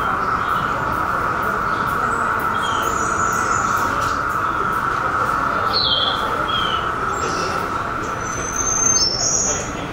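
Scattered short bird chirps, each a quick falling note, over a steady droning hiss.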